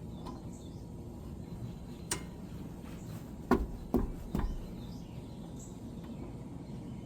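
A few sharp knocks from tools being handled during rear brake work: one light click about two seconds in, then three louder knocks in quick succession around three and a half to four and a half seconds in, over a steady outdoor background hum.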